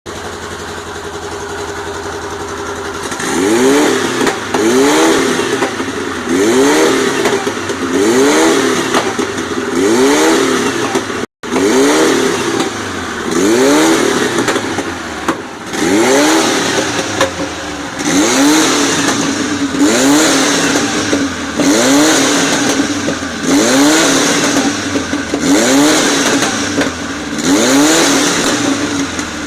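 Supercharged 1.8-litre boxer engine idling steadily for a few seconds, then revved over and over in quick throttle blips, about one every second and a bit, each rising sharply in pitch and falling back to idle. The sound cuts out for a moment about eleven seconds in.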